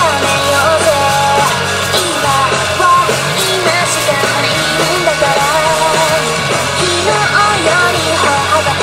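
A song with a sung lead vocal over a steady bass line, played loud and without a break.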